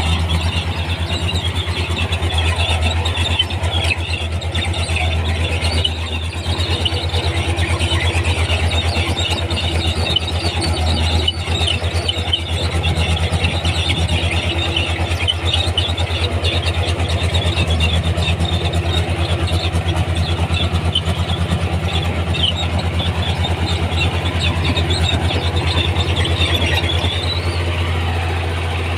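Komatsu D31P crawler bulldozer's diesel engine running steadily under load, with continuous high squealing and squeaking from its steel track undercarriage as it moves.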